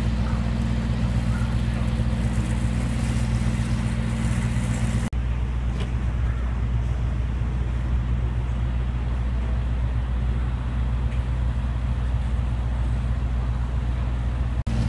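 Diesel semi-truck idling: a steady low engine drone, with two brief dropouts, about five seconds in and near the end.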